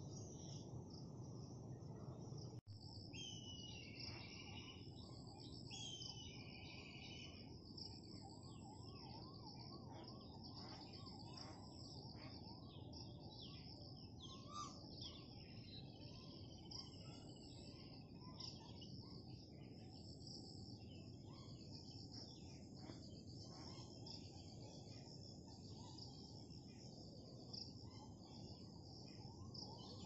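Faint outdoor ambience: a steady high-pitched insect buzz with scattered bird chirps and calls over a low background hum, with two longer calls a few seconds in. The sound drops out briefly about three seconds in.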